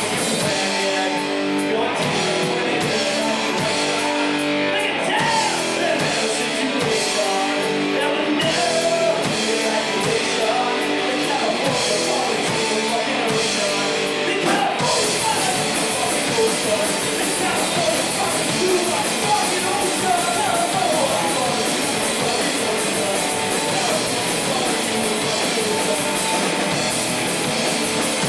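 Live rock band playing: distorted electric guitars, bass guitar and a drum kit, with a sung vocal.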